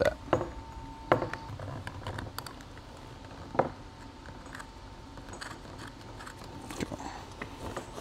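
Scattered light clicks and taps as a control cable's threaded end is handled and screwed by hand into a hydraulic joystick, the loudest knocks about a second in and again a few seconds later.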